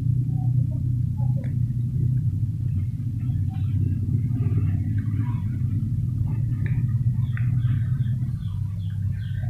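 A steady low rumble, with faint scattered high chirps from about three seconds in.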